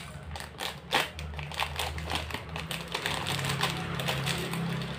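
Plastic Choco Chips cereal packet crinkling as it is squeezed and shaken, with irregular crackling clicks as the cereal pieces are poured into a cup; the sharpest click comes about a second in.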